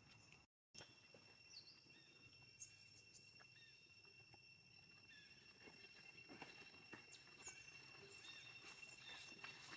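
Faint outdoor ambience with steady high-pitched tones and scattered short, high animal chirps, more of them near the end. The sound cuts out completely for a moment about half a second in.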